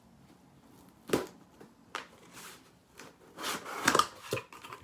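Cardboard mailer box being pulled open by hand: a sharp crack about a second in and another shortly after, then a burst of cardboard crunching and tearing as the lid flap comes free near the end.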